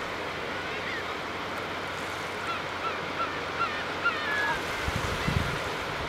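Brant geese giving a quick series of about six short throaty calls in the middle, over steady surf lapping on a sandy shore. A low rumble comes in near the end.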